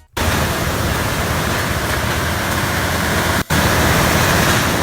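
AI-generated typhoon storm sound effect: a loud, steady, dense rushing noise that starts abruptly and drops out for a moment about three and a half seconds in.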